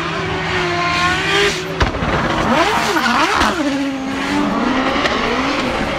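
A 1,000-horsepower Formula Drift car's engine revving hard as it drifts, its pitch swooping up and down, with tyres squealing against the track.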